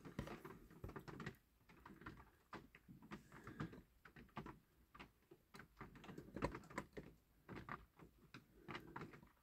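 Faint, irregular small clicks and taps of steel tweezers handling a small rivet and setting it into the base plate of a diecast toy lorry.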